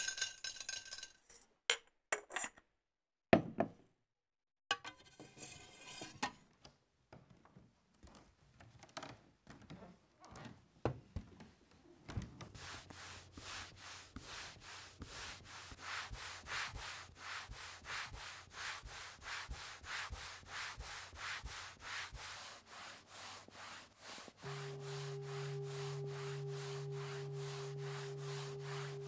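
Small jars and lids clinking and knocking against wooden coating boxes as iodine and bromine are set in place, then a daguerreotype silver plate being polished by hand on chamois leather with iron oxide: quick, even back-and-forth rubbing strokes. A steady low drone joins the rubbing near the end.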